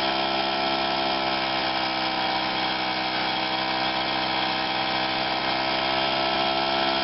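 Solex 5000 moped's small two-stroke single-cylinder engine idling steadily while its carburettor mixture is being tuned.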